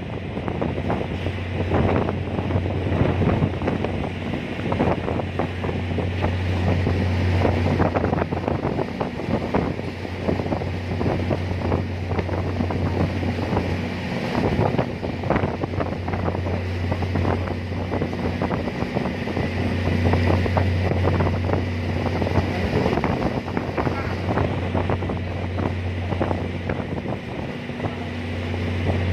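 Lake ferry's engine droning as a steady low hum that swells and eases every several seconds, under strong wind buffeting the microphone.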